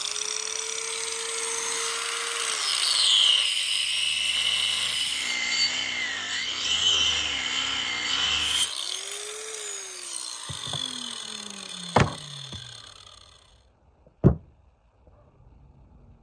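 Electric angle grinder cutting through a beef leg bone: a high, gritty cutting noise over the motor's whine, which sags in pitch under load. Near the end the grinder is switched off and winds down in a falling whine, with two sharp knocks.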